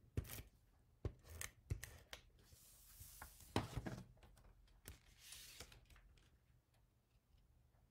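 Faint paper-crafting noises: cardstock slid and handled on a tabletop, with a few light taps and clicks and two short rasps of a tape runner laying adhesive on the paper.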